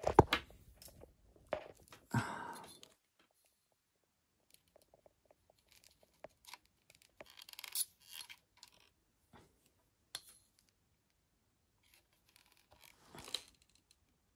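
Scattered handling noise from work on an electric unicycle's battery wiring: a sharp knock at the start, then sparse clicks, scrapes and rustles as multimeter probes are set against the connectors.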